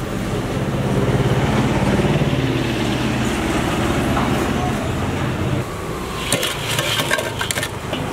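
A motor vehicle engine running close by on the street, a steady low hum that is loudest in the first half. From about six seconds in comes a quick run of sharp metal clinks.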